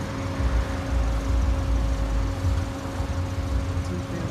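Car engine idling, heard from inside the cabin: a steady low rumble with a constant hum over it.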